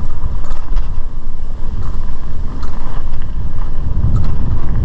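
Wind buffeting the microphone of a camera on a moving mountain bike, a heavy low rumble, with scattered clicks and rattles from the bike running over the dirt trail. The rumble swells near the end.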